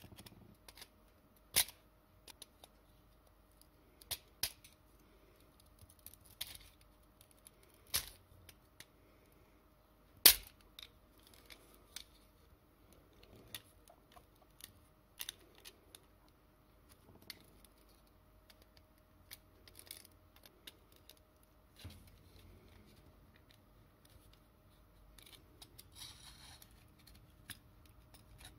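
Sharp clicks and small metallic snaps of hand tools (pliers, a pointed tool, a screwdriver) working on a tin toy car's sheet-metal body, scattered every second or two, the loudest about ten seconds in. A short scraping noise comes near the end.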